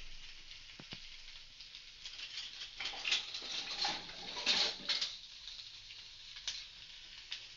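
Bacon sizzling and crackling in a hot frying pan in its own fat, with a louder run of crackles in the middle.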